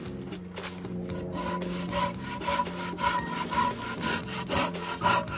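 Hand pruning saw with big, sharp teeth cutting through a log: back-and-forth rasping strokes, about two a second, getting stronger from about a second in.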